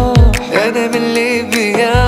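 Background music: a song with a wavering, ornamented vocal over a steady drone and deep, booming drum hits, one at the start and one at the end.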